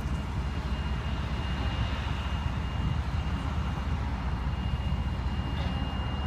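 Steady low rumble of idling vehicle engines and road traffic, with a faint thin high tone that comes and goes.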